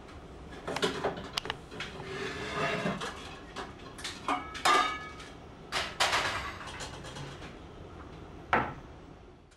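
Metal pots and lids clanking and knocking together as cookware is pulled out of a wall cabinet, several strikes ringing briefly. The loudest clank comes about halfway through, and another sharp knock comes near the end.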